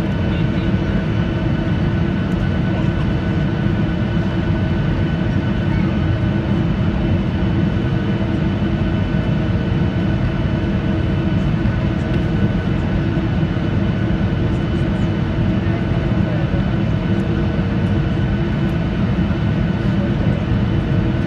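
Steady cabin noise of a Ryanair Boeing 737-800 airliner on its landing approach: a loud, even roar of airflow and jet engines with a few steady whining tones running through it.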